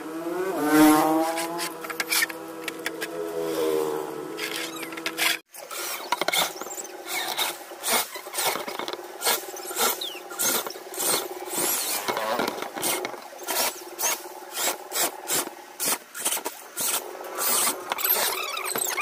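A flat spade drill bit boring holes through a board, making a rough rasping scrape of cutting in quick repeated strokes. Before it, about five seconds in, a different passage of steady tones cuts off abruptly.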